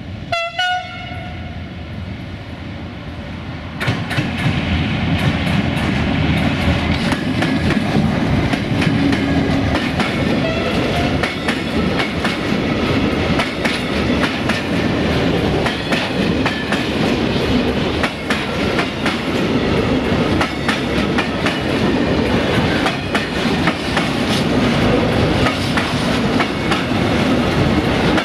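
Softronic Transmontana Class 480 electric locomotive gives a short horn blast right at the start. From about four seconds in it passes close by, followed by a long line of tank wagons rolling past with a steady rumble and the clickety-clack of their wheels over rail joints.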